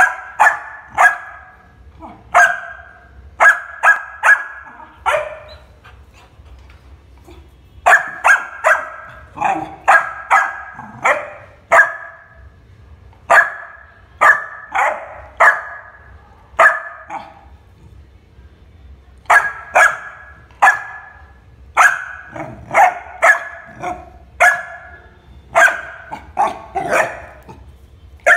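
Labrador Retriever puppy barking over and over: short, sharp barks in quick bouts of several, broken by a couple of pauses of about two seconds.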